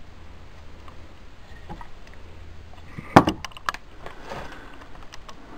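A quick cluster of sharp knocks and clatter a little past halfway, three or four strokes close together, over a faint low hum.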